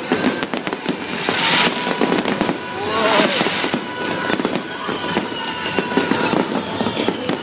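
Fireworks finale barrage: aerial shells bursting in quick succession, a dense run of bangs and crackling with a few brief hissing rushes.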